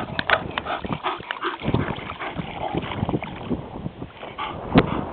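Water splashing and sloshing as a Great Dane wades through shallow lake water. The splashes come thick in the first second, then thin out into a rougher wash, with one sharp splash near the end.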